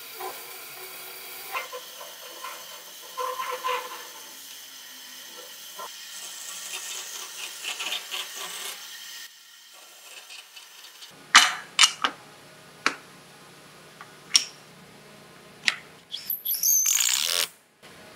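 Band saw running and cutting through a block of hardwood, with a steady hum under the noise of the cut. After a short lull come a string of sharp wooden knocks and clatter on the steel saw table, then a brief loud burst near the end.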